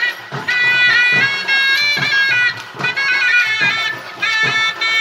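Traditional folk procession music: a shrill reed pipe plays a wavering melody over regular drum strokes.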